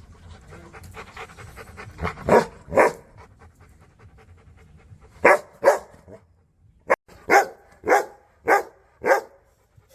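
A big dog, a Rottweiler, panting rapidly, then barking in short runs: three deep barks about two seconds in, two more about five seconds in, and four evenly spaced barks near the end.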